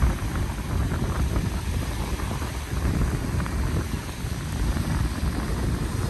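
Ocean waves washing onto a beach: a steady rushing surf with a low rumble.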